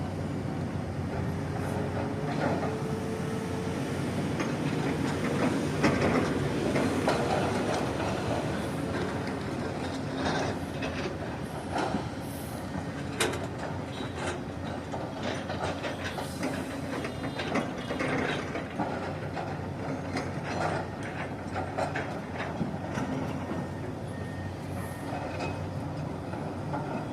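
Excavator's diesel engine running steadily while it digs soil, with repeated sharp metal clanks and knocks from the bucket and arm.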